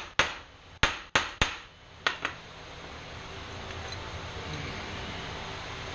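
A hammer tapping a steel easy-out (screw extractor) into a pressure washer pump housing, about six sharp metallic strikes in the first two seconds or so, then they stop and a steady hiss remains.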